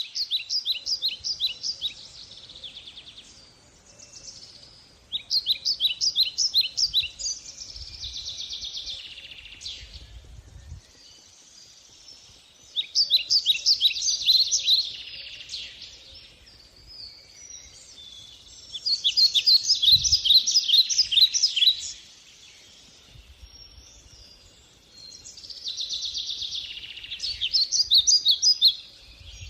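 Songbird singing: about five phrases of quick, high chirped notes, each lasting two to three seconds and coming roughly every six seconds, with softer chirping in between.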